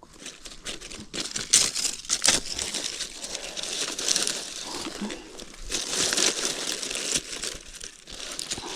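Dry leaves and twigs crackling and rustling, with many small irregular snaps. A small smoky leaf fire is being got going to drive off mosquitoes.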